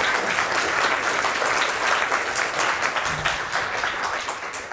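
Audience applauding: many hands clapping in a steady patter that starts to die away near the end.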